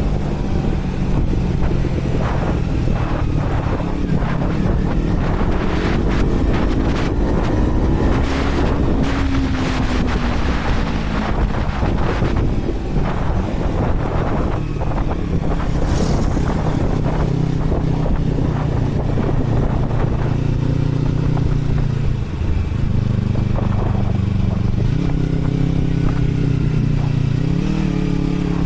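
Yamaha R3 parallel-twin engine running through an aftermarket WR exhaust tip with the dB killer removed, its pitch rising and falling with the throttle between steadier stretches. Wind noise on the microphone runs underneath.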